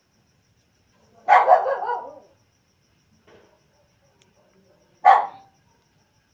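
A dog barking: a quick run of loud barks about a second in, then a single short bark near the end.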